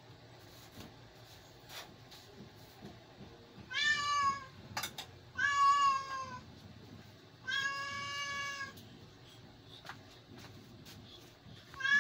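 A cat meowing: three drawn-out meows about a second apart, each sliding slightly down in pitch, then another meow starting near the end.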